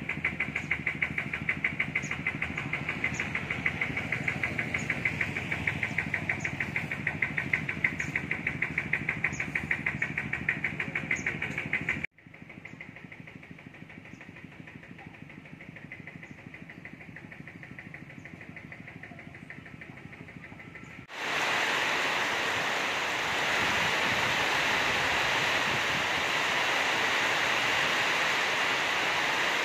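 A loud, fast, even pulsing buzz for about twelve seconds. After a cut there is a quieter stretch, and then from about twenty-one seconds a loud, steady hiss of heavy rain.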